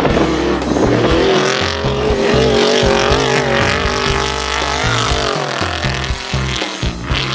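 Off-road race vehicle's engine revving hard, its pitch climbing over the first second or two, then held high and wavering up and down.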